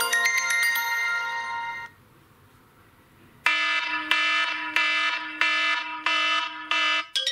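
Two iPhone SE stock ringtones in turn. A ringing, mallet-like chiming melody dies away about two seconds in. After a short quiet gap, another ringtone starts: an alarm-like beep that repeats about six times, a little over half a second apart.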